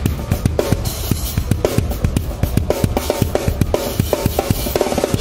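A metal drum kit played live, heard close up as in a drum cam: a fast, driving run of kick drum and snare strikes with cymbals, with the band's music underneath.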